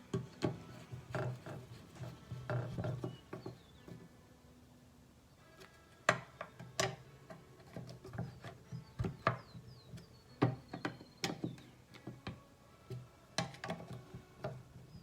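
Irregular clicks, taps and light knocks of hand tools and small parts as the screws of a plastic carburetor on a Briggs and Stratton push mower engine are snugged down, with a pause of a couple of seconds early on.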